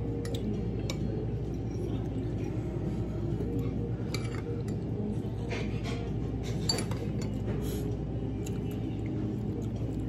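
Metal fork and spoon clinking and scraping against a plate, scattered clinks every second or so, over a steady low background hum.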